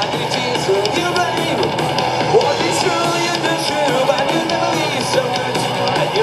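Metal band playing live, with distorted electric guitars, bass guitar and drums running steadily at full volume.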